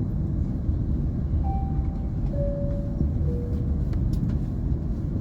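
Steady low rumble of a parked airliner's cabin. About a second and a half in, three faint short tones sound one after another, each lower than the last.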